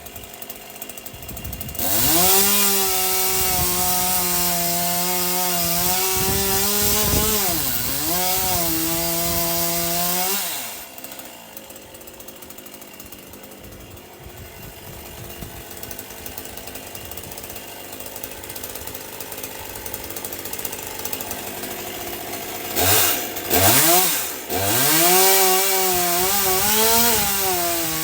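Stihl MS 201 C-M two-stroke chainsaw running at full throttle for about eight seconds, its pitch sagging briefly as it works in the wood, then dropping to idle. Near the end it gets two quick throttle blips and then goes back to full throttle.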